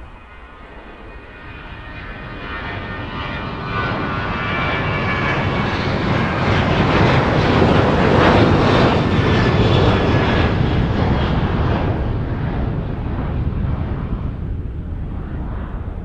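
Boeing 737's CFM56-7B turbofans at takeoff power passing by: a jet rumble that builds, peaks about halfway, then fades. Several high whining tones sound over it in the first half.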